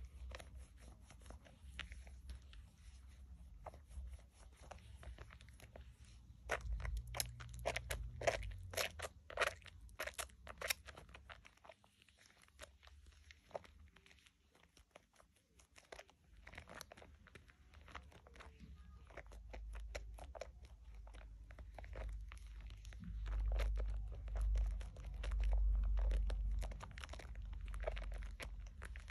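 Wet hands squeezing and kneading a bar of Dove shea butter soap in a bowl of soapy water, the lather squishing and crackling in quick runs of small pops, busiest about six to eleven seconds in and again through the second half. A low rumble from the handling swells up near the end.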